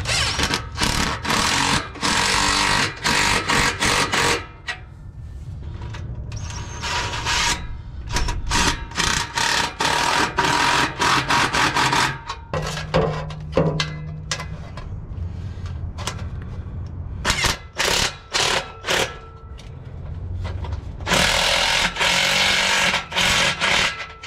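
Cordless impact driver hammering exhaust clamp nuts tight through a socket, in several bursts of a few seconds each with short pauses between.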